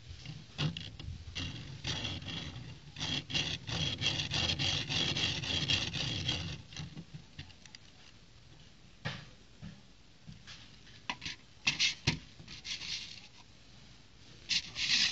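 Small plastic brick-built toy race car rolled and handled on a wooden table: several seconds of rubbing and rattling from its plastic wheels and bricks, then scattered light clicks and knocks.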